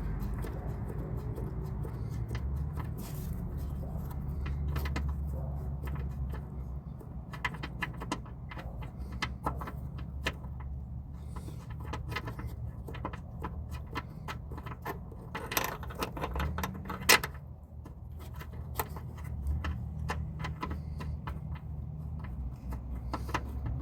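Scattered metal clinks and taps of hand tools and parts while a top engine mount is being fitted, over a steady low hum. One sharper clack about 17 seconds in.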